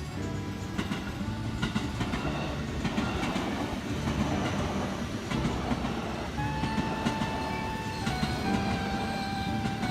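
A train running past on the rails, its wheels clacking over the rail joints with a dense rumble. About two-thirds of the way in, a few held tones that change pitch sound over it.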